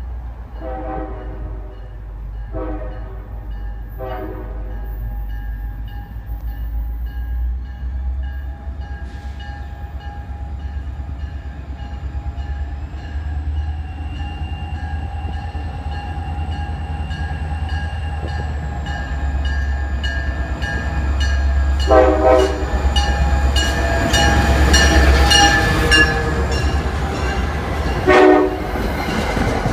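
NJ Transit ALP-45DP locomotive's horn and engine as the train approaches and draws alongside. The horn sounds two long blasts and a short one in the first few seconds, then two more blasts late on. Under the horn the engine's low rumble grows steadily louder, with wheel noise rising as the locomotive passes close.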